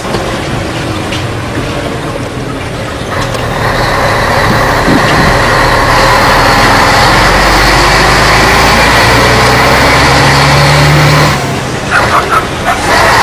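Scania 113H truck's diesel engine heard from inside the cab. It grows louder over the first few seconds, pulls with the revs rising, then drops off sharply about eleven seconds in, and a few clicks follow.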